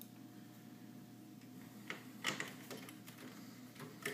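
A few small metallic clicks and taps from a screwdriver and screws being worked into the metal chassis of a server sled, the loudest a little past halfway, over a faint steady hum.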